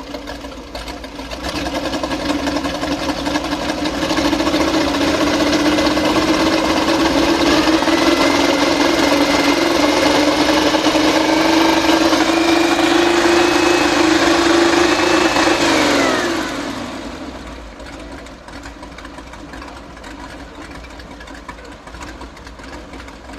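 Tatra 603-1's air-cooled 2.5-litre OHV V8 idling, then revved up about a second and a half in and held at raised revs, its pitch creeping slowly higher. About sixteen seconds in the throttle is released and it drops back to idle.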